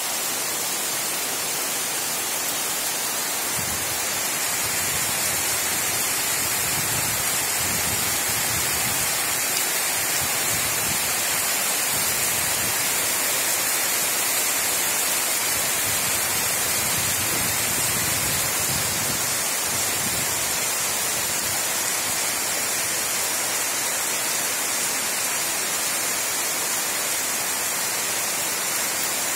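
Heavy monsoon rain pouring steadily onto flat concrete rooftops and leafy trees, a dense even hiss. A low rumble comes and goes in the first two-thirds.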